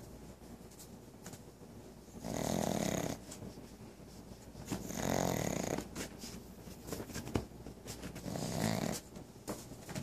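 Pug snoring loudly: three long snores, one about every three seconds, with a few faint clicks between them.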